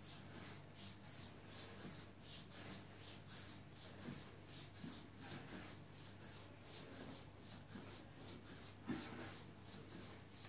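Hands rubbing quickly over the bare skin of a leg in massage: faint, regular strokes, about three a second.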